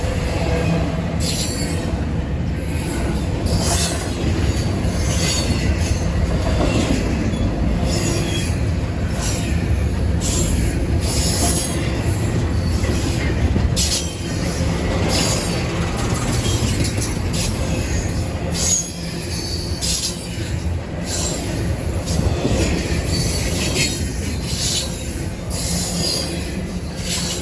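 A train rolling past, with a steady low rumble from the cars and frequent short, high-pitched wheel screeches.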